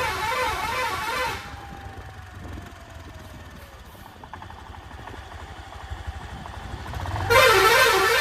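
Bus telolet basuri musical air horn playing its warbling multi-note tune, which breaks off about a second in and starts again near the end. Between the two, the bus's engine runs low underneath.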